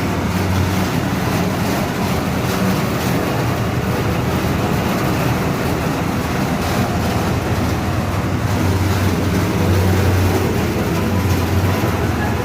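Small petrol engine of a sugarcane juice machine running steadily.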